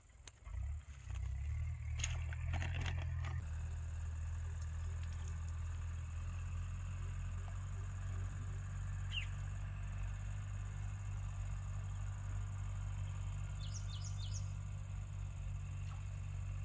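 Pond-side ambience dominated by a steady low rumble, with a few knocks and rustles of handling in the first three seconds. A bird gives one short rising chirp about nine seconds in and three quick chirps near fourteen seconds, over a faint steady high hiss.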